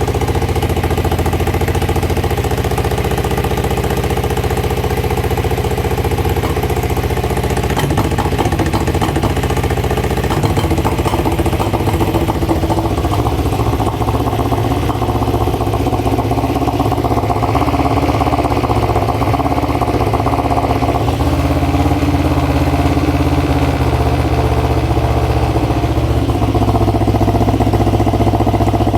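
Kawasaki EX500's parallel-twin engine idling steadily while misfiring on one cylinder.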